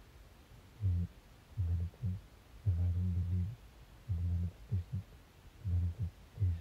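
Muffled deep bass notes of a song in an uneven rhythm, each note held at one steady pitch, with the upper part of the music almost inaudible.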